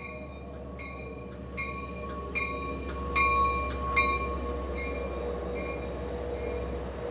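Diesel-hauled commuter train pulling past a station platform: a low engine rumble that grows louder, a steady high squeal, and a bell ringing about once every 0.8 seconds. It is loudest about three to four seconds in, as the locomotive passes.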